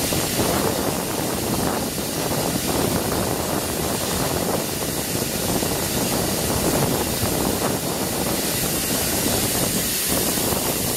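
Steady hiss of steam from ATSF 3751, a 4-8-4 steam locomotive, mixed with wind noise on the microphone.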